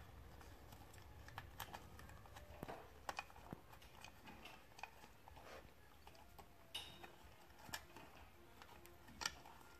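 Faint, irregular small clicks and rustles of wires and plastic connectors being pushed by hand into an electric bike's controller compartment.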